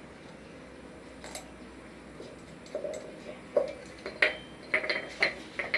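Small metallic clicks and light knocks from handling an aluminium motorcycle carburetor body while its slow jet is fitted by hand. A quiet stretch comes first, then about six scattered clicks in the second half.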